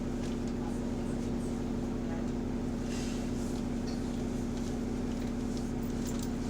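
Bus diesel engine running steadily, heard from inside the passenger cabin as an even low hum with a fast pulse and a few light rattles. The bus has an exhaust leak that can only barely be heard from inside.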